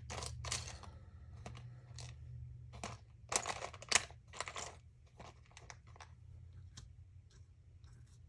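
Small wooden craft shapes clicking and clattering in a clear plastic packet as they are sorted by hand, with crinkling plastic. The loudest clatters cluster about three to five seconds in, over a low steady hum.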